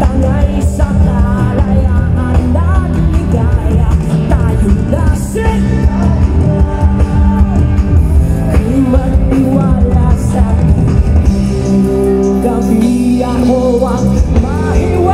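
A live rock band playing loudly with a male lead vocalist singing over heavy bass and drums.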